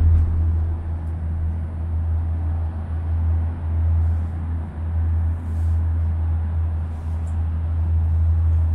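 Steady low rumble inside a moving Disney Skyliner gondola cabin riding along its cable.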